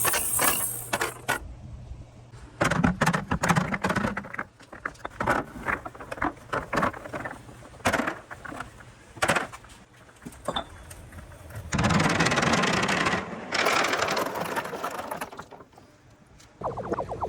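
Balls rolling down a marble run, with many sharp clicks and clacks as they hit the track and each other, and stretches of steady rolling rumble partway through.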